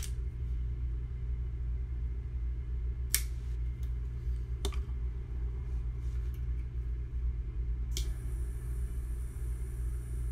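Steady low rumble with a few sharp clicks, about three seconds in, near five and at eight, as a cigar is handled and cut.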